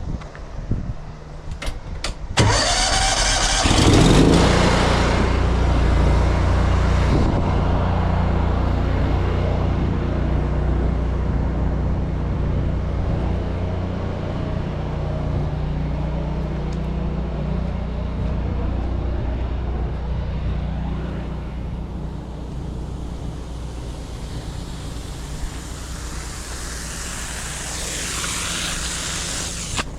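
Pressure washer's engine starting about two seconds in, then running steadily, with the hiss of its water spray over it, louder near the end.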